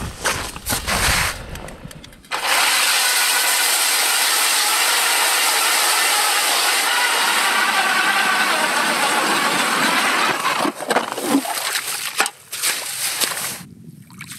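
Power ice auger drilling through lake ice, a steady loud motor whine with the grinding of ice shavings, starting a couple of seconds in and stopping about ten seconds in, followed by irregular scraping and knocking of ice chips.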